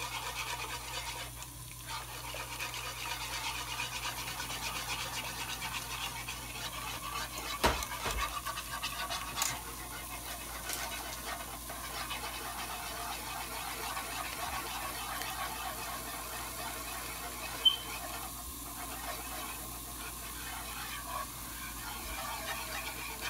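A whisk stirring cream into a pan sauce, a steady quick scraping and swishing, with a couple of sharp knocks against the pan.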